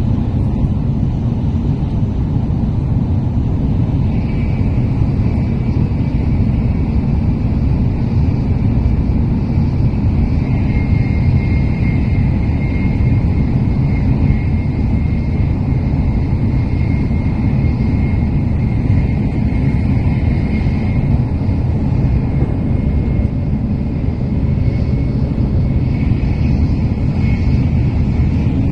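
Shinkansen running at speed, heard inside the passenger car: a loud, steady low rumble, with a faint high whine coming in about four seconds in and holding on.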